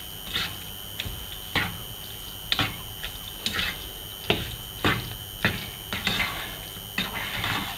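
A plastic slotted spatula knocking and scraping against a nonstick frying pan while stirring boiled white peas in a thick spiced masala: about ten sharp taps, roughly one every 0.6–0.8 s, with longer scrapes near the end.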